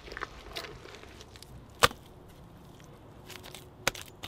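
Bare hands slapping and pressing wet clay-and-straw daub onto a wattle wall: a few sharp slaps, the loudest about two seconds in and another near the end, with softer squelching between.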